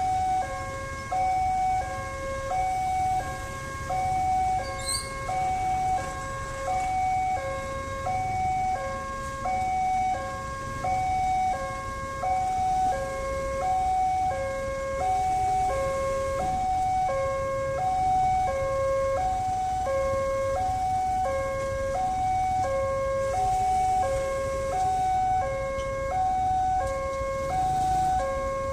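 Railway level-crossing warning alarm: an electronic two-note signal alternating steadily between a higher and a lower note, each about half a second long. It sounds while the crossing lights flash and the barrier is down for a train. Motorcycle engines idle low underneath.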